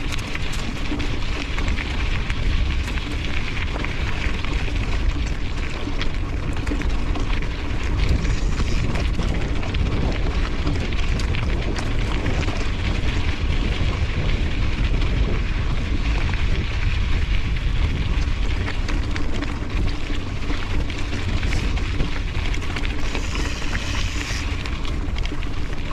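Riding a mountain bike along a trail: steady wind rumble on the microphone and tyre noise, with frequent small clicks and rattles from the bike over rough ground.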